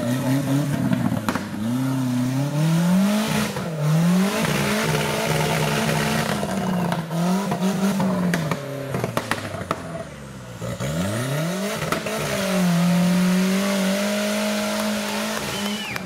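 Off-road 4x4 buggy's engine revving hard under load in deep mud, in repeated rising and falling surges. It drops back briefly past the middle, then climbs and holds at high revs near the end.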